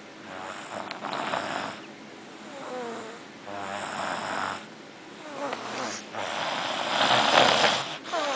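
Young boy snoring in his sleep: a series of about five or six snoring breaths, a second or so apart, the loudest near the end.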